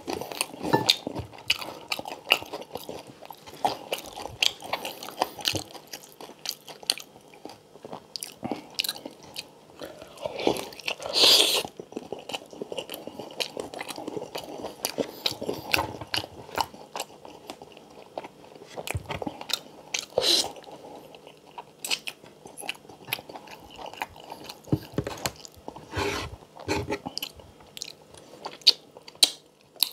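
Close-miked chewing and crunching of deep-fried pork knuckle (crispy pata) and rice, full of sharp wet mouth clicks. One louder, longer noisy sound comes about eleven seconds in, and another shorter one about twenty seconds in.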